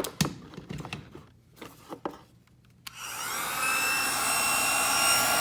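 A few handling clicks and knocks, then about three seconds in a handheld hair dryer switches on. Its fan spins up within a second to a steady rush of air with a high whine.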